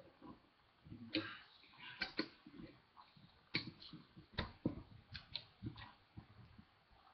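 Sharp plastic clicks and clacks of a brick-built Lego lever-action toy gun being handled and worked: about ten separate clicks, several in quick pairs, starting about a second in and stopping near the end.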